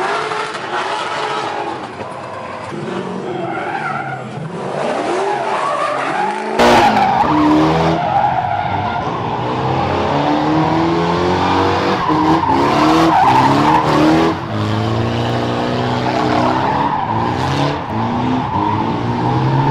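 Drift car's SR20 four-cylinder engine revving, its pitch rising and falling again and again, with tyres skidding on the asphalt. About a third of the way in the sound jumps abruptly louder and fuller.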